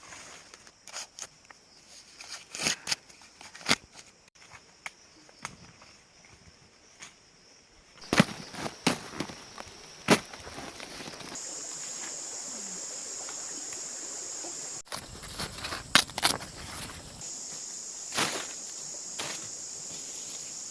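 Irregular sharp knocks and cracks, some loud, in quick clusters; about eleven seconds in a steady high-pitched buzz sets in behind them.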